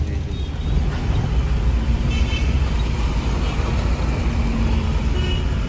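Steady low rumble of engine and road noise inside a moving taxi in city traffic.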